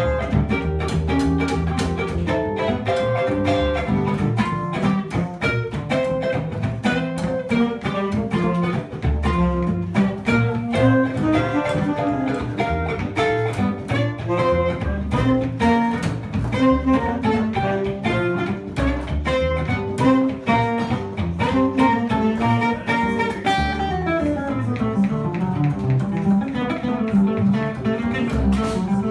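Live jazz: a Gibson archtop guitar playing a fast line of single notes over a plucked upright double bass.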